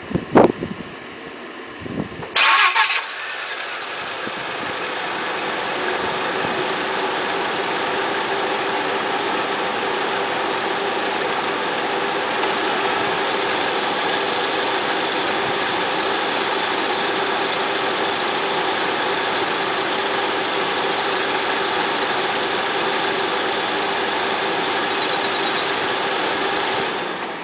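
A 2002 Volkswagen Passat's engine starting with a short crank about two and a half seconds in, after a sharp knock at the very start, then idling steadily until it is switched off near the end.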